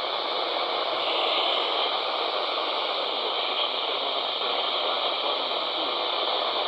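Steady hiss of radio static from a weather radio receiver, with no voice on the channel.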